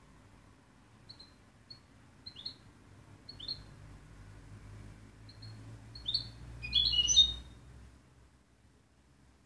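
European goldfinch calling: short, high chirps spaced about a second apart, building to a brief, louder burst of twittering song about seven seconds in.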